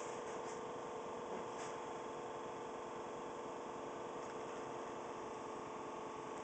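A 301 cubic-inch engine idling steadily with a rough idle, a few faint ticks in the first two seconds.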